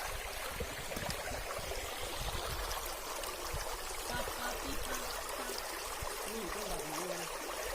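Steady rush of falling and flowing water at a waterfall, with faint voices in the background a few times.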